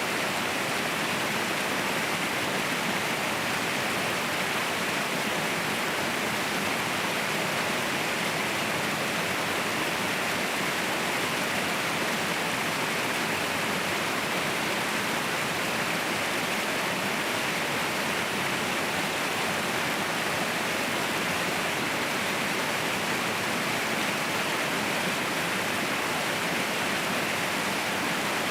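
Waterfall crashing steadily: a dense, unbroken rush of falling water with no change in level.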